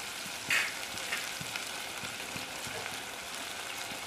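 Boiled country chicken pieces frying in oil in a pot, with a steady sizzle. A brief louder crackle comes about half a second in.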